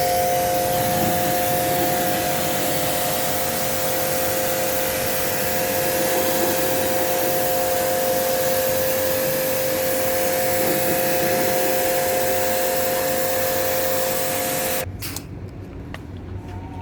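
Electric pressure washer running and spraying water onto an air conditioner, a steady hiss with a two-note motor whine, cutting off suddenly near the end.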